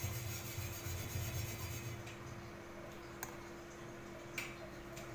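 Two light clicks of a metal spoon against a glass, about three seconds in and again near the end, over a low steady hum and some low handling rumble at the start.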